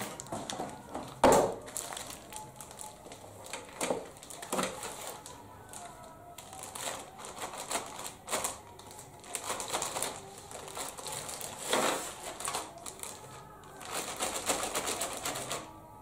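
A plastic-wrapped ceiling-fan blade is handled on a tabletop. It is set down with a loud knock about a second in, followed by crinkling and rustling of its plastic wrap and several smaller knocks and clicks.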